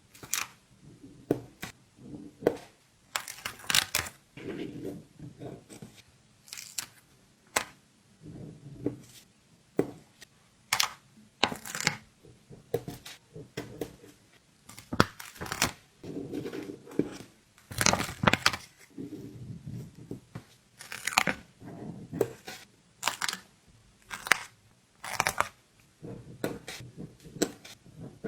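Stickers being peeled off their backing sheets over and over: short ripping peels, with paper rustling and light handling between them.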